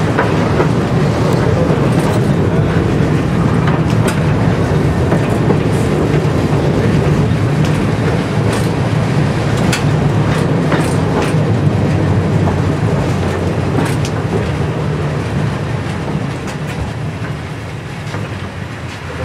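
Tram running along the track, heard from inside the driver's cab: a steady rumble of wheels and running gear, with scattered clicks of the wheels over rail joints. It gets quieter near the end.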